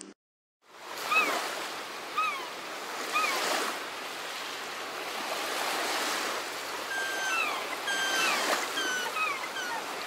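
Sea waves washing against a rocky shore, a steady swelling wash. A bird calls over it in short whistles that slur downward, three about a second apart, then a run of longer held notes that drop in pitch near the end.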